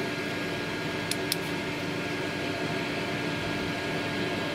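Electric fans running steadily: an even rushing noise with a steady low hum under it. Two small clicks a little over a second in.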